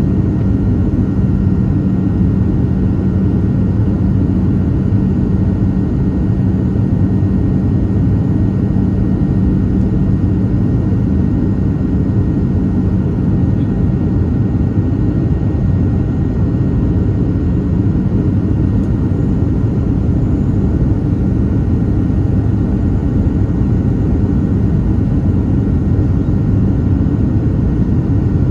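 Cabin noise inside a Boeing 737-700 in descent on approach, heard from a window seat beside the wing: the CFM56-7 turbofan engines and the airflow past the fuselage make a steady low drone with a faint whine above it.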